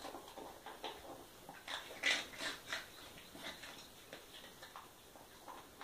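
A dog eating from its food bowl: irregular crunches and clicks of chewing and of the bowl, loudest about two seconds in.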